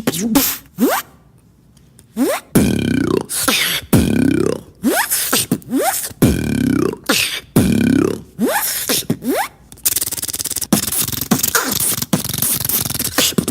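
Beatboxer making sound effects with his voice alone: a run of swooping vocal sweeps that slide down in pitch about every second and a half, then a rapid buzzing rattle from about ten seconds in.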